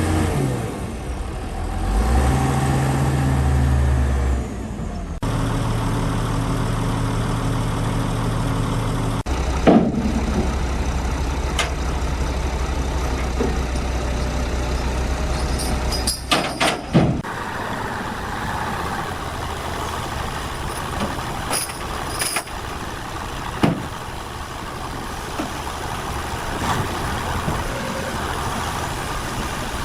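Heavy machinery engines running steadily, with a few sharp knocks and clanks. The engine note changes abruptly several times.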